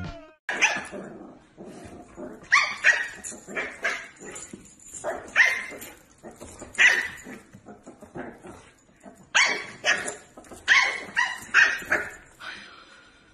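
A dog barking: about a dozen short barks in loose groups, with pauses of a second or more between groups.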